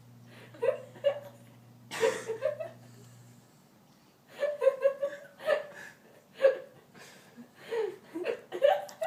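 A woman with the hiccups laughing helplessly, short giggling bursts in several runs with a brief lull in the middle, the laughter set off by her hiccups.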